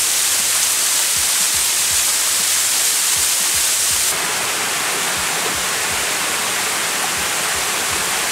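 Waterfall and cascading water rushing steadily. About four seconds in, the sound changes abruptly to a slightly softer, lower rush.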